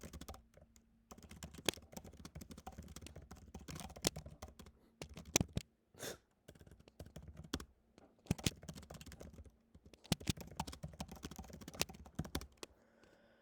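Typing on a computer keyboard: quick, irregular key clicks with short pauses between runs.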